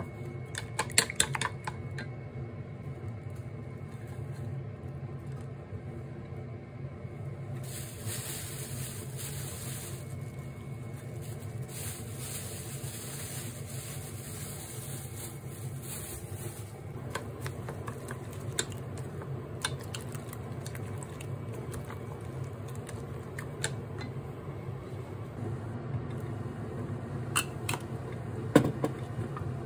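Wooden chopsticks clicking against a stainless steel bowl as eggs are beaten about a second in, over a steady low hum. A hiss lasts about nine seconds in the middle, and a few sharp clicks and knocks come near the end.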